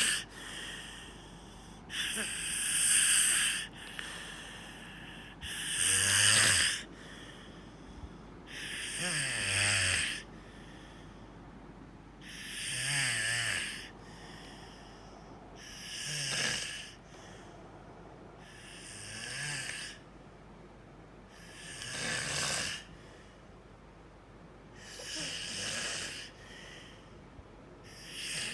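A sleeper snoring in a steady rhythm, one breathy snore about every three seconds, about eight in all. Several carry a low fluttering buzz.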